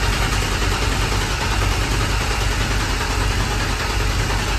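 Ford 302 V8 cranking over steadily on its starter motor without firing, spun to build oil pressure and check a newly plumbed oil pressure gauge line.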